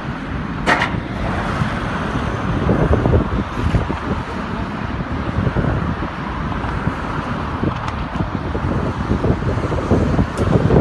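Steady road traffic and heavy truck engines running, with wind on the microphone; a brief sharp noise about a second in.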